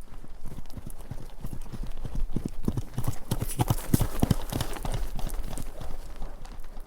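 Several horses galloping past, a dense patter of hoofbeats that grows louder, peaks in the middle and fades away.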